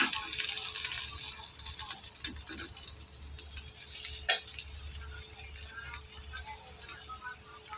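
Chopped onion, capsicum, green chilli and carrot sizzling steadily in hot oil in a frying pan, with one sharp click about four seconds in.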